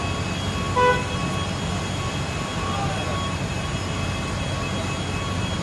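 Steady low rumble of airport traffic and engine noise, with one short pitched toot just under a second in.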